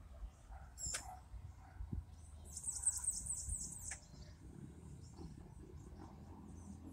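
A bird calling: a fast run of short, very high-pitched falling notes, about six a second, beginning about two and a half seconds in and lasting about a second and a half. A faint low rumble lies underneath.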